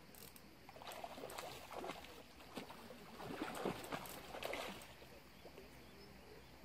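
Irregular bursts of water splashing for about four seconds, loudest near the middle: a hooked sturgeon thrashing at the surface while being played on rod and line.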